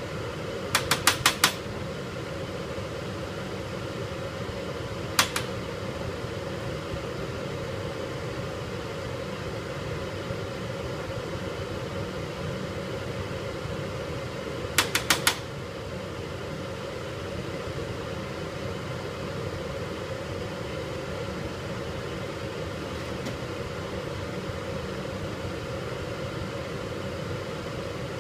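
Steady mechanical hum like a ventilation fan, broken by sharp clicks: a quick run of four or five about a second in, a single click about five seconds in, and another run of four about fifteen seconds in.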